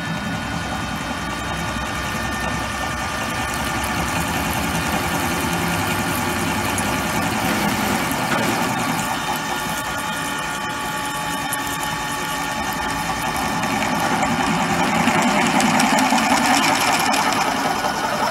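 A twist drill running in a machine spindle and cutting dry into a metal block, with a steady motor and drive hum under the rough grinding of the cut. The cutting noise grows louder about two-thirds of the way through and eases off near the end.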